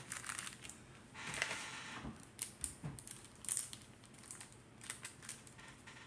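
Crinkling and rustling of card-pack wrappers being handled, in several short bursts with light clicks and taps.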